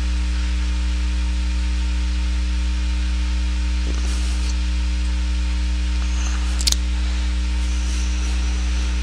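Steady electrical mains hum with a buzz of higher overtones, with one short click about two-thirds of the way through.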